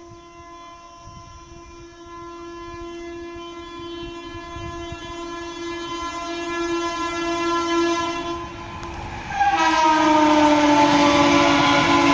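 Rajdhani Express locomotive's horn sounding one long note while the train approaches at about 110 km/h, growing steadily louder. After a brief dip about nine seconds in, the horn comes back much louder with the rush of the train at speed, and its pitch falls slightly as the locomotive passes.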